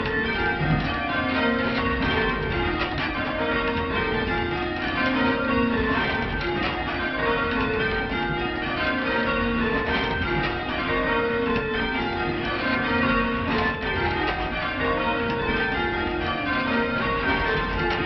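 Full-circle church bells rung by hand from the ringing chamber, struck one after another in regular descending runs that repeat over and over, as in rounds and change ringing.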